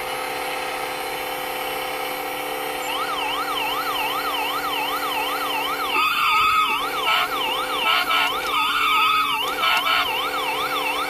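Electronic sound chip of a 1993 Tomy police-car driving game. It plays a steady electronic engine drone, and from about three seconds in a fast warbling toy siren joins it, rising and falling two to three times a second. From about six seconds in, short stretches of extra electronic tones come and go over the siren.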